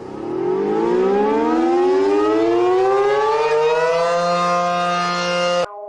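Civil defense siren winding up from a low pitch, several tones rising together over about four seconds into a steady wail, then cutting off abruptly near the end.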